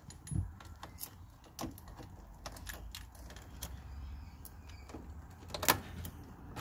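Scattered clicks and jingles of a car key being handled, turned and pulled from the ignition, with the loudest click near the end. Underneath runs a steady low hum: the interference noise that the head unit puts into the car's speakers while the ignition is on.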